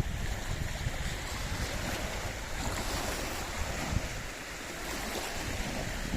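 Lake waves washing steadily, with wind buffeting the microphone in irregular low gusts.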